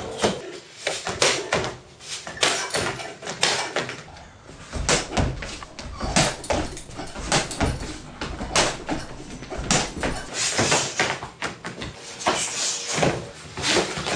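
Irregular thuds and slaps from martial-arts sidekick practice: feet stamping and sliding on a wooden deck, and kicks striking a hanging heavy bag that swings away.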